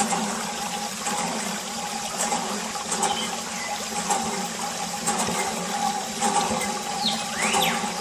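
A steady thin stream of water from a mini water pump's clear plastic tube, splashing onto plastic toys and sand, over a steady hum. A few short chirps come near the end.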